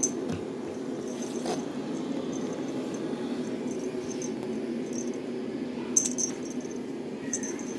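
Feather wand cat toy being waved and handled over bedding: a few sharp light clicks, the loudest about six seconds in, over a steady low hum.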